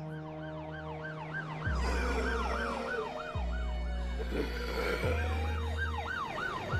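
Emergency-vehicle sirens yelping, cycling rapidly up and down in pitch several times a second, with a slower siren wail gliding down partway through. Underneath runs a sustained music pad with a deep bass note that changes every couple of seconds.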